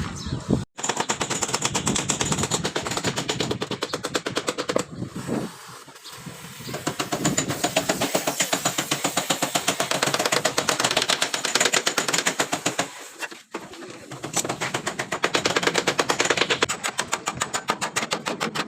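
Rapid mechanical rattling, many clicks a second, in long runs with short breaks about half a second in, around six seconds in and about thirteen seconds in.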